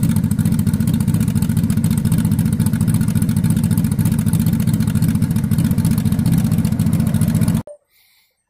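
Honda motorcycle engine idling steadily, its idle speed freshly turned down from about 1,100–1,200 rpm, which the owner felt was too high. The sound cuts off suddenly near the end.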